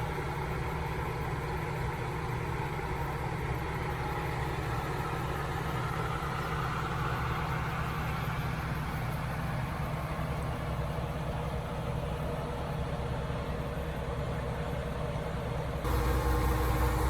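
Combine harvester engine running steadily with a low, even hum. About a second before the end the low rumble steps up louder.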